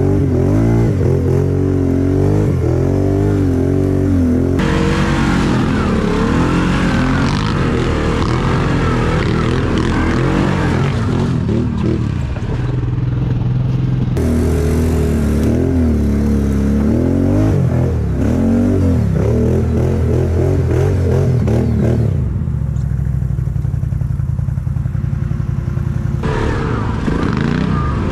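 Quad bike (ATV) engine revving up and down over and over, its pitch rising and falling in waves, with a rougher, noisier stretch from about five to eleven seconds in.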